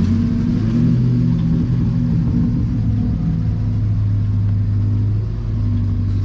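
A vehicle engine running steadily at low revs, a deep even drone that eases slightly about five seconds in.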